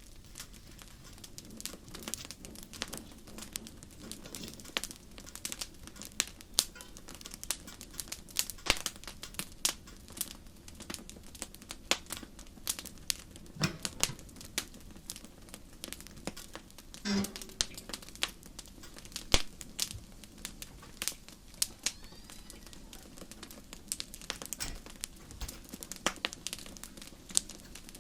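Wood fire burning with a dense, irregular crackle of sharp pops and snaps over a low steady hiss.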